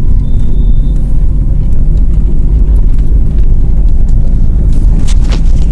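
Steady low rumble of a car in motion, with a couple of brief ticks near the end.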